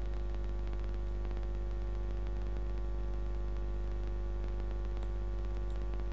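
Steady electrical mains hum with a stack of buzzing overtones, unchanging throughout, over a faint hiss.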